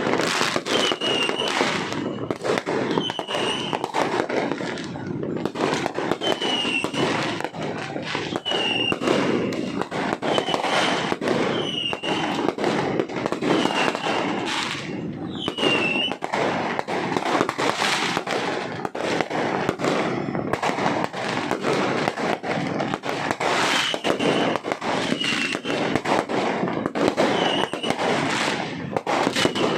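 Fireworks going off without pause: many overlapping bangs and crackles, with short high falling whistles recurring every second or two.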